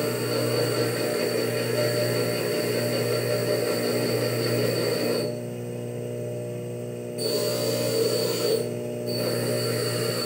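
Steady hum of a small electric motor with a thin high whine; the upper part of the sound drops away for about two seconds in the middle and again briefly near the end.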